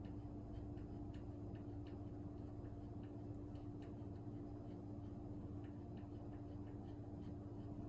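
Faint, uneven ticking, a few ticks a second, over a steady low hum with one constant tone.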